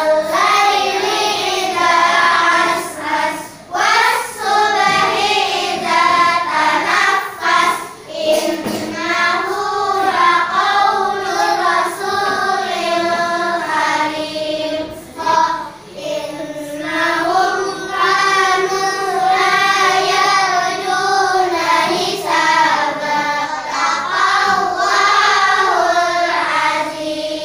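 A class of young children reciting memorised Quran verses together in a chanted, sing-song unison, with short breaks every few seconds.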